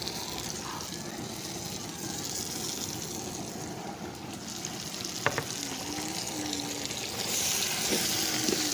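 Biryani masala of onions, spices, green chillies, tomato and mint frying in oil in a pot, a steady sizzle that grows louder near the end. A single sharp clink, likely a utensil on the pot, about five seconds in.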